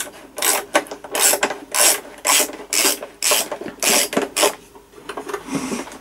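Screwdriver turning a screw out of a Dyson vacuum cleaner's plastic housing, a short rasping stroke about twice a second.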